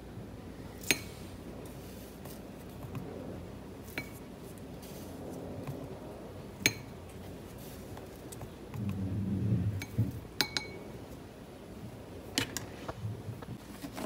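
Plastic measuring spoon clicking and tapping against a plastic container and a ceramic bowl as brown sugar is scooped and tipped out, a few separate sharp clicks seconds apart. A duller low rumble of handling lasts about a second past the middle.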